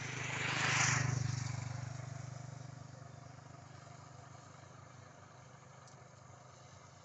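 A motor vehicle passing by: a low engine hum that swells to its loudest about a second in, then fades away.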